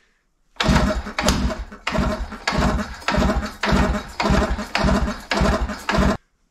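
Pionjar 120 gas-powered jackhammer's two-stroke engine firing on starting ether, running in rough, uneven pulses two or three a second for about five seconds, then cutting out suddenly. It runs only on the ether: no fuel is reaching the engine yet.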